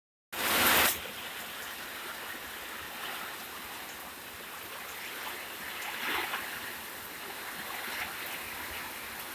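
Heavy rain with strong wind: a steady rushing noise that swells now and then, opening with a brief, much louder rush of less than a second.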